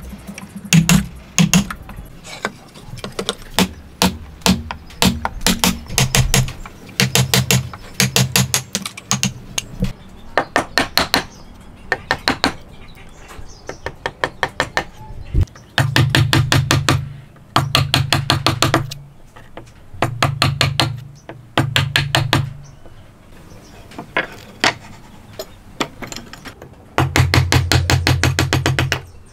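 A steel chisel being struck in quick runs of sharp blows as it is driven into hardwood to chop out a joint recess, with brief pauses between the runs.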